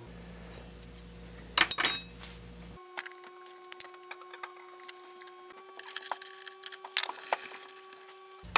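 Brass workpieces handled on a workbench: a sharp ringing clink of brass on brass about two seconds in, then small taps and scratchy rubbing as a felt-tip marker is drawn along the brass tube.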